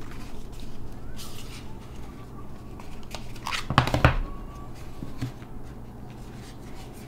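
Hands handling and unfolding a cardboard box, with paperboard flaps rustling and sliding. A louder knock comes about four seconds in as the box is laid flat on the table.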